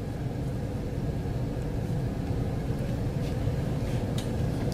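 Steady low rumble of background noise, with a couple of faint clicks late on.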